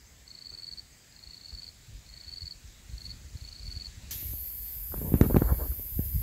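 An insect calling in short buzzy trills, about seven of them, evenly spaced, for the first four seconds. Then a steady high hiss starts, and a run of loud low thumps and knocks follows about a second later.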